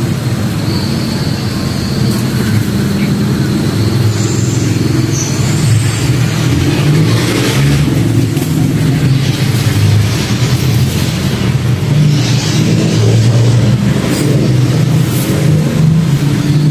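Steady low rumble of a running engine, with a few short hissy noises about seven and twelve seconds in.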